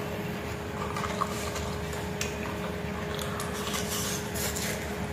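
Close-up eating sounds: a person chewing and lip-smacking while eating rice and fried fish by hand, with scattered short wet clicks that grow thicker toward the end, over a steady background hum.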